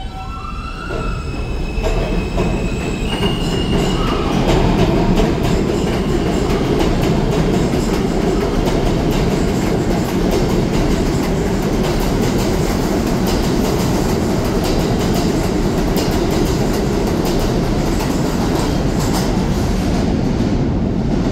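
Alstom R160B subway train pulling out of an underground station. A rising whine comes in the first few seconds, then a loud steady rumble and wheel clatter as the cars run past.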